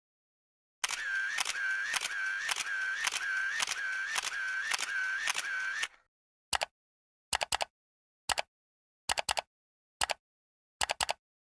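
Sound effect of mechanical clicks. First comes a rapid, even series of about two clicks a second, each with a short whine, lasting about five seconds. Then six separate short clicks follow, some single and some in quick pairs.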